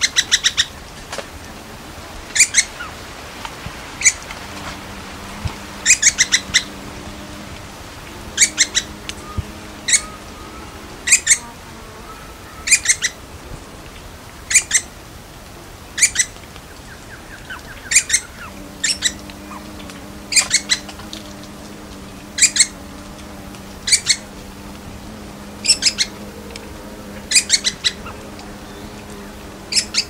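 Little woodpecker (Veniliornis passerinus) calling: short, sharp, high notes, given singly or in quick runs of two to five, repeated every second or two.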